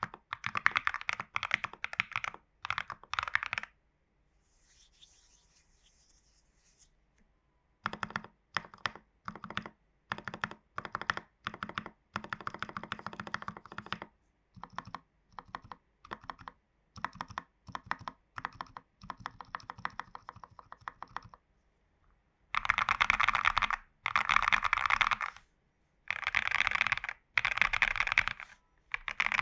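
Mechanical keyboard with lubed AKKO Vintage White switches in a foam- and tape-modded TU40 plastic case, typed on in bursts of keystrokes. There is a pause of a few seconds near the start, then lighter, spaced keystrokes and short runs, and faster, louder typing runs in the last several seconds.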